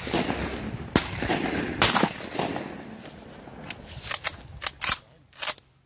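Shotgun shots, sharp reports with a trailing echo: one about a second in and the loudest just under two seconds in. Several quicker, quieter cracks follow between about four and five and a half seconds.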